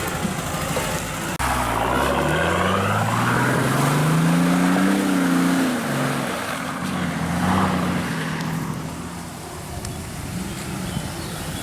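Off-road 4x4's engine revving up steadily for a few seconds, then dropping back and holding at a lower pitch before easing off.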